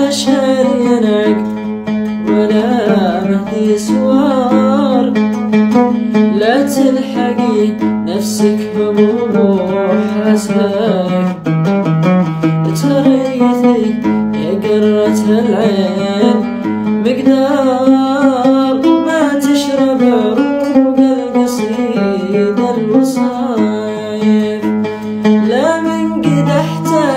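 Oud plucked in an ornamented melodic line, with a man singing over it at times.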